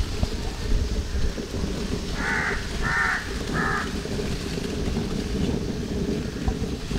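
A bird calls three times in quick succession, roughly half a second apart, over a steady low rumbling background noise.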